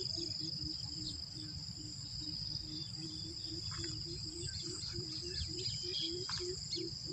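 Steady high-pitched chorus of crickets and other insects, with a low call pulsing about three times a second underneath and wind rumbling on the microphone.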